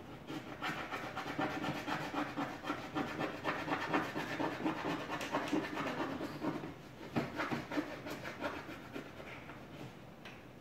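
Crayon scribbling quickly back and forth on a large white board, a dense run of rapid scratchy strokes that thins out and fades near the end.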